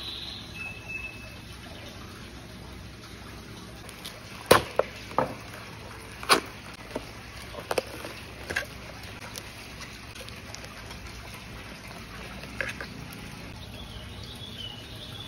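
Cup noodle packaging being handled: a few sharp clicks and crinkles from the plastic cup, foil lid and seasoning sachets, the loudest about four seconds in, over a steady low background noise.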